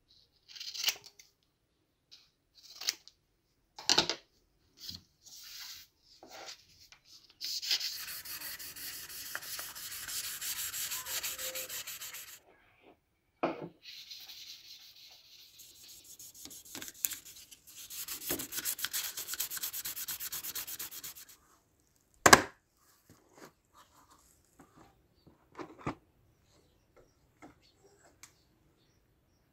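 The metal slide of a toy Colt 1911 being rubbed back and forth by hand on fine 3000-grit sandpaper: two long runs of steady, even rasping. Before it come a few short snips and clicks from cutting the sandpaper, and one sharp knock comes after it.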